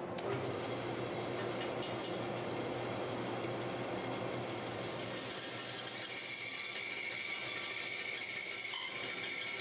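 Band saw running and cutting through a thick maple blank, a steady mechanical whir with the blade sawing in the wood.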